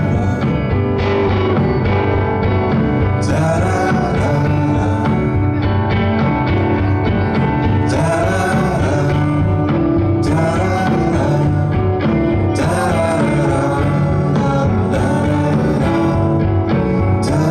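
Live band music: a man singing over acoustic guitar, drums and keyboard, with cymbals coming in and out every few seconds.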